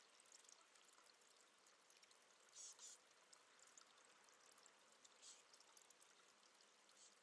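Near silence: a faint steady hiss, with two brief faint high-pitched bursts, one a little before the middle and one about three quarters of the way in.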